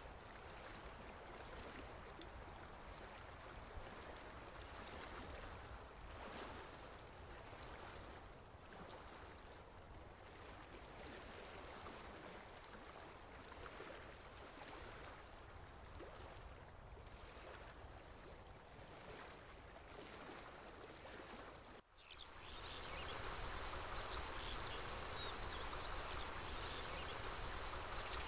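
Faint steady rush of running water. About 22 seconds in it cuts off abruptly and gives way to louder outdoor ambience with birds chirping high over a thin steady whistle.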